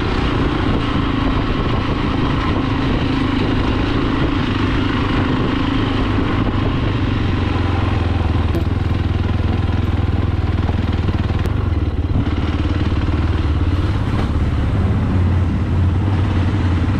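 Fantic Caballero 500's single-cylinder engine running steadily under way on a gravel track, its low note growing stronger near the end as the bike enters a stone tunnel.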